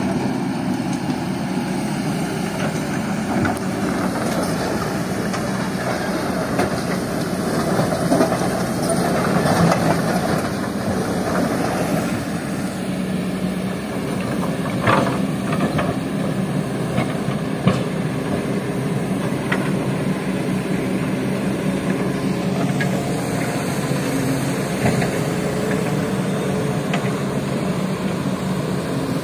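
Diesel engine of a Kobelco hydraulic excavator running steadily, with a few sharp knocks around the middle.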